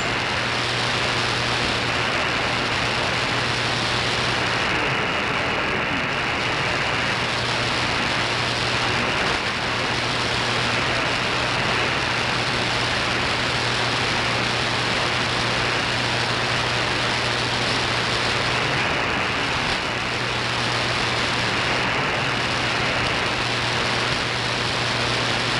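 Steady shortwave static and hiss from an SDRplay receiver tuned to the 4930 kHz Voice of America broadcast, with a low steady hum underneath; no programme speech comes through the noise.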